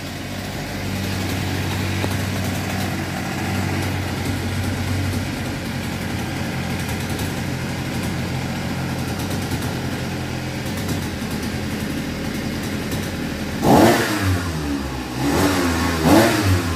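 Small air-cooled 3 hp Nakajima outboard motor running steadily out of the water, its propeller turning free with no load. Near the end it is revved up and let back down twice with the twist-grip throttle.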